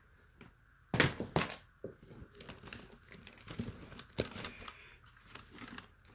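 Paper Lego instruction booklets being handled and shuffled: irregular rustling and crinkling with scattered sharp knocks, the loudest about a second in.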